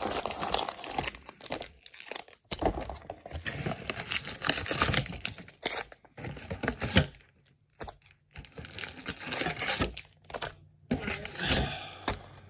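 Foil-wrapped trading card packs crinkling and rustling as they are pulled from a cardboard hobby box and stacked on a table, in irregular bursts with a few short pauses.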